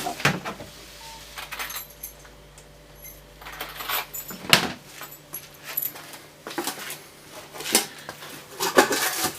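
Metal keys jangling and clicking as a handful of Brava keys is handled and tried one after another in a lock cylinder plug, where they will not slide in. The clinks come irregularly, the loudest about four and a half seconds in.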